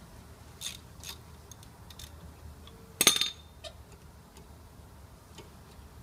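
Ratchet with a 7 mm hex-bit socket being worked on a brake caliper guide pin: scattered light metallic clicks, and a loud ringing metal clatter about three seconds in.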